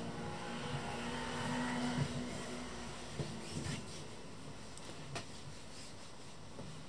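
A faint, steady low mechanical hum that is strongest for the first couple of seconds and then fades, with a few light knocks.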